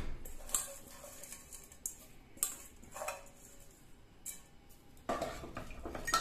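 Broken pieces of dry Maggi instant noodles dropped into a metal pressure cooker pot, in short separate rustling handfuls. From about five seconds in, a ladle scrapes and clatters against the pot as it stirs.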